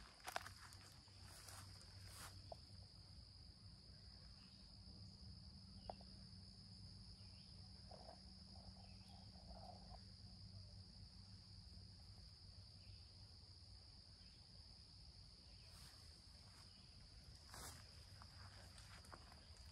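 Faint, steady high-pitched drone of insects. A few footsteps on a dirt path sound in the first two seconds and again near the end.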